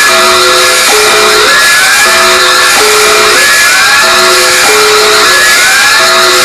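Mock emergency alert system alarm, a loud electronic signal. Held chords of steady tones are broken by rising sweeps about once a second, repeating throughout over a heavy hiss.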